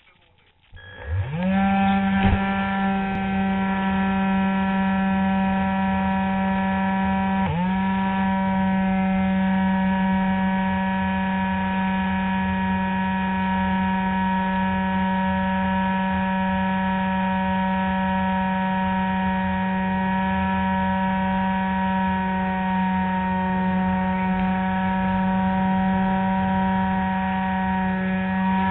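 Electric motor and folding propeller of a Spectra RC glider, heard close up from a camera on the fuselage: it spins up about a second in to a steady whine, dips briefly and picks up again at about seven and a half seconds, then runs steadily under power.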